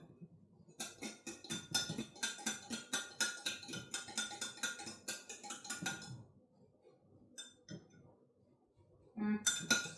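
A fork beating an egg in a glass: quick strokes clinking against the glass, about six a second, for some five seconds, then stopping.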